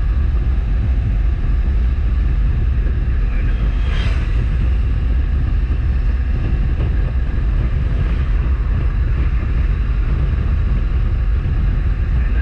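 Wind buffeting the microphone over the steady rumble of a motorcycle riding at highway speed, with a brief hissing rush about four seconds in.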